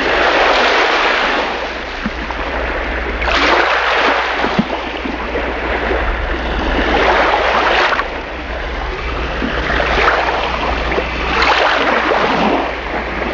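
Sea waves washing in and breaking, swelling about every three to four seconds over a steady low rumble.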